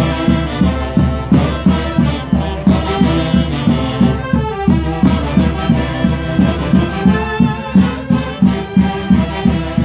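Live Andean folk orchestra with saxophones playing a llamichada dance tune with a steady beat.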